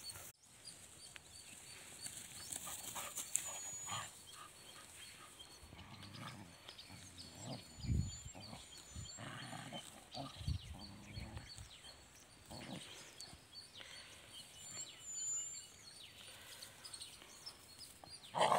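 Dogs growling and grunting off and on as they play-fight, with a louder outburst near the end.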